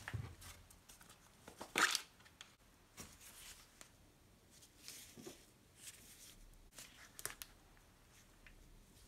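Gloved hands handling the parts of a dismantled angle grinder: scattered clicks, knocks and rustles as the plastic motor housing and the stator are moved about on a wooden bench, the loudest a sharp knock about two seconds in.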